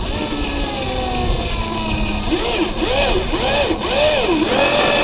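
Power drill driving a screw into vinyl siding without a pilot hole: the motor's pitch sinks under load, then rises and falls several times as the trigger is worked. The screw is not getting through the siding.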